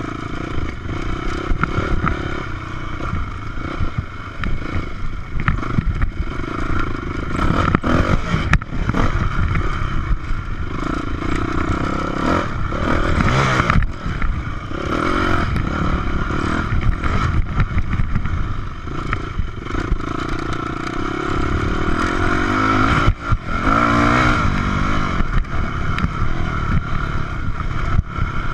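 Yamaha 426 four-stroke single-cylinder dirt bike engine under way, rising and falling in pitch as the throttle is opened and closed. Sharp clattering knocks come through as the bike runs over the bumpy track.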